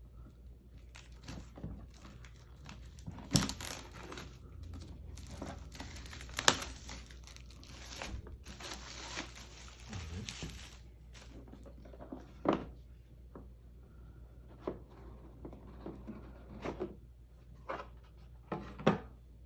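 Plastic wrap being torn and crinkled off a board game box, with a couple of sharp snaps. Then a few separate knocks and rustles as the cardboard box and its contents are handled.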